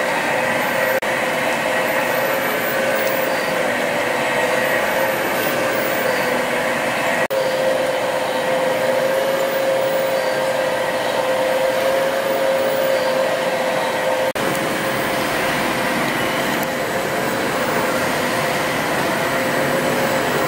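Several stationary steam engines running together in an engine hall: a steady mechanical whirr and rush with a constant whine on top and no distinct beat, broken by brief dropouts about one, seven and fourteen seconds in.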